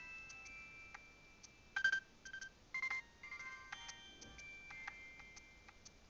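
Nokia 7200 mobile phone playing a polyphonic ringtone through its loudspeaker: a quick melody of short electronic notes, several sounding at once, with louder notes about two and three seconds in.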